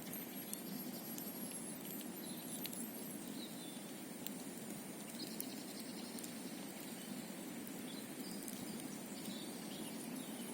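Campfire burning with sparse sharp crackles and pops over a steady low rushing noise, with faint, short, very high chirps here and there.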